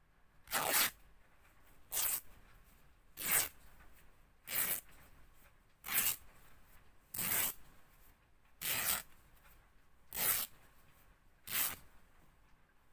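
Fabric being ripped in nine short tears, one about every second and a half, each a brief noisy rip.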